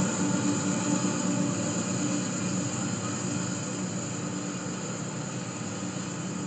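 Union Pacific diesel-electric locomotive running as it moves away, its steady engine drone slowly fading.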